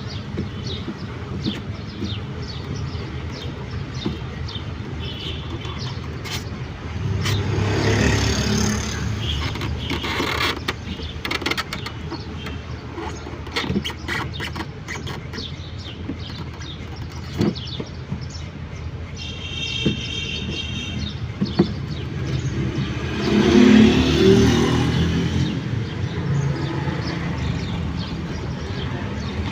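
Street traffic in the background, with vehicles passing by twice, swelling and fading about 8 and 24 seconds in. Scattered light clicks and a brief high tone near the middle.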